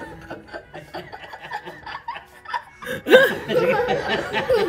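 A person chuckling and laughing, growing loud about three seconds in.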